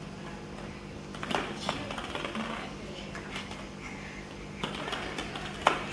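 Hollow plastic ball-pit balls tapping and clacking on a hard stone floor as they are dropped and handled: several separate sharp taps, the loudest near the end.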